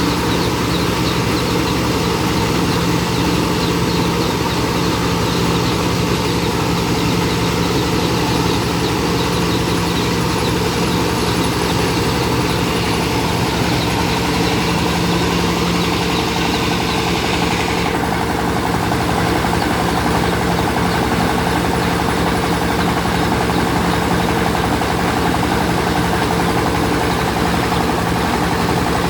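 Rice milling machine running steadily with a constant engine-like hum and rushing hiss. The upper hiss thins out about two-thirds of the way through.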